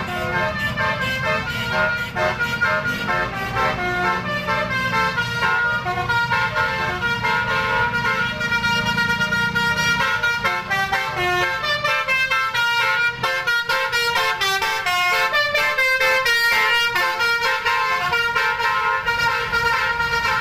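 Bus basuri horn, the multi-note 'telolet' horn, playing a tune: several horn tones sound together and step from note to note, with the notes changing faster in the second half. A low rumble runs underneath at first and fades about halfway through.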